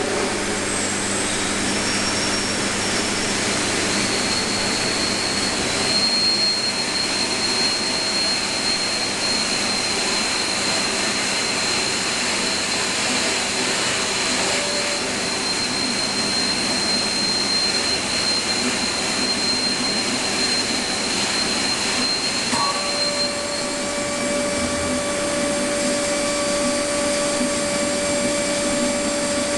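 A large belt-driven machine powered by an electric motor runs with a steady, loud rushing noise and a thin high whine. A little over twenty seconds in, the whine stops, and a new tone glides down in pitch and holds steady at a lower note.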